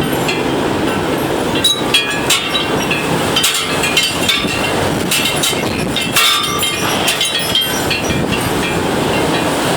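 Strong gusty wind buffeting the microphone in a steady loud rush, with irregular sharp clattering and rattling throughout.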